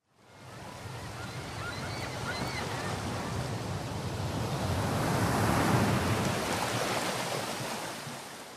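Surf sound: a single wave of noise that swells up, peaks about six seconds in and dies away, with a few faint chirps about two seconds in.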